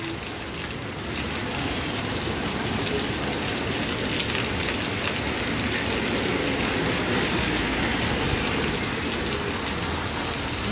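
Steady rain falling on a wet street, with road traffic moving through it.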